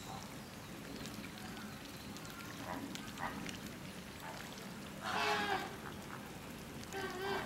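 Flamingos calling: a few soft honks in the first seconds, a loud honking call about five seconds in, and a shorter one near the end.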